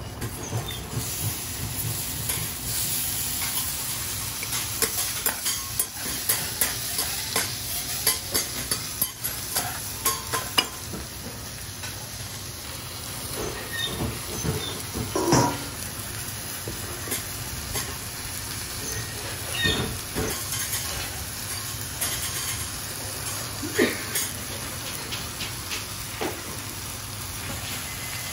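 Food sizzling on a hot steel teppan griddle, with frequent clicks, scrapes and knocks of metal spatulas against the plate.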